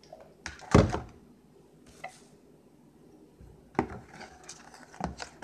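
A plastic glue bottle knocking down on a wooden table about a second in. From near four seconds, thick slime being stirred in a plastic bowl, with a quick run of small clicks, scrapes and squishes.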